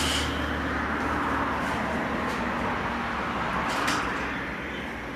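A small electric toy-train motor's high whine cuts off just after the start. A steady low hum and hiss remain, with a couple of faint clicks near the end.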